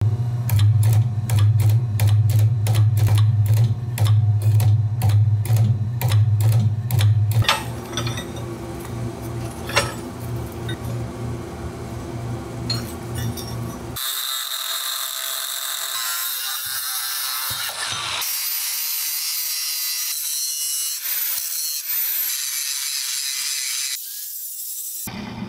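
Forging machine working a glowing billet of welded spring washers: a heavy low hum with regular strikes, about three a second, for the first seven seconds or so. After that comes quieter mixed shop noise, then a steady high hiss of a power tool from about halfway through.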